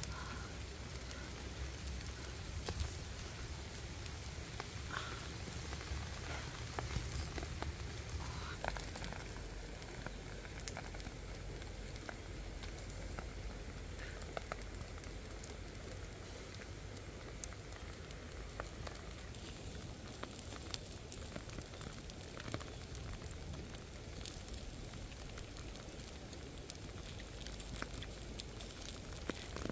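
Open wood fire crackling under chicken wings grilling on a rack of sticks, a steady sizzling hiss with scattered sharp pops.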